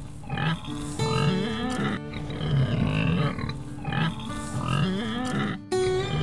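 Piglets grunting over background music.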